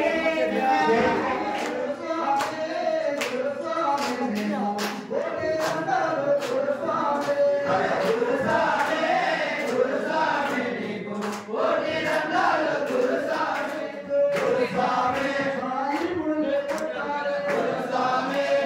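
A group of men singing a devotional chant together, with hand claps cutting in many times across it.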